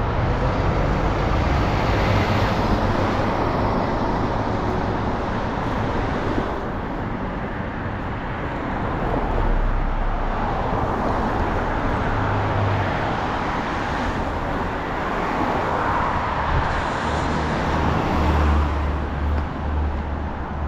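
Road traffic: cars passing close by one after another on a multi-lane road, tyre and engine noise swelling and fading as each goes past.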